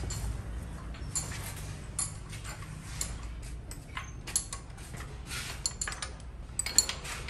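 Metal parts and hand tools clinking and clicking during work on a truck's manual gear transmission. The clinks come irregularly, a few each second, the sharpest near the end, over a low steady hum.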